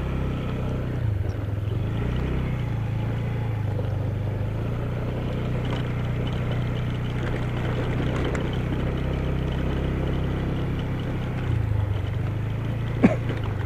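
Yamaha Xeon 125 scooter's single-cylinder engine running steadily while riding, its note shifting briefly about a second in and again near the end.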